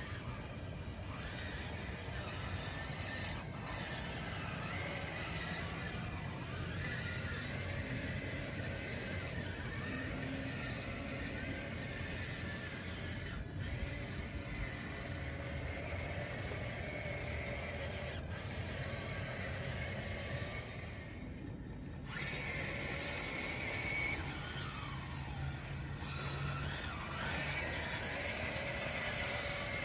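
Electric drive motors and gears of a DXR2 RC bulldozer on wide tracks running under load, a whine whose pitch rises and falls, over steady grinding and scraping noise.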